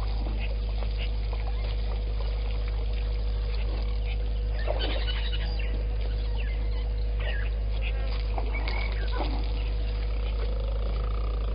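Scattered short bird calls, a cluster about five seconds in and more a little later, over a steady low electrical hum with a constant faint tone.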